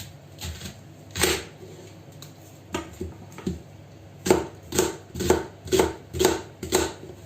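Knife chopping a sweet onion on a cutting board: a few separate cuts, then a steady run of chops about two a second over the second half.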